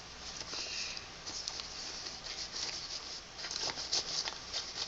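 Small objects being handled by hand: light rustling with scattered faint clicks, and a few small knocks near the end.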